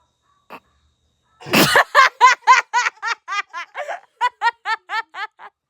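A girl laughing at a joke's punchline. A sharp burst of breath comes about a second and a half in, then a run of high-pitched 'ha's, about four a second, growing fainter toward the end.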